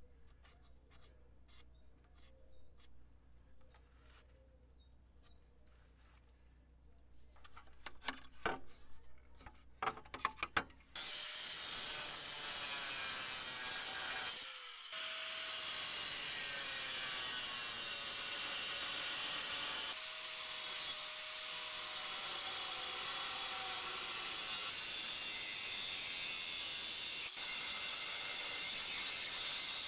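An angle grinder's cutting wheel cuts through the steel bottom lip of a Jeep Cherokee XJ's front cross member. It starts about a third of the way in and runs steadily, with a brief break just after it starts. Before it starts there are only light scratches and a few sharp taps.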